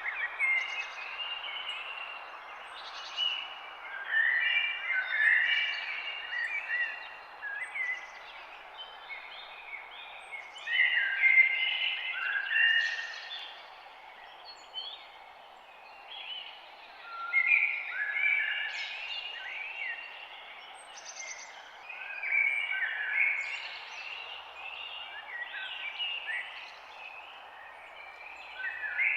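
Songbirds chirping and singing in a dawn chorus, many short overlapping calls and trills in livelier spells every few seconds, over a steady background hiss.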